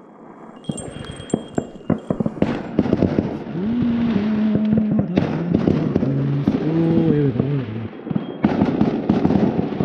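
Many fireworks banging and popping in quick succession, going off all over town, with a crackling wash behind them. A man hums a tune over the bangs in places.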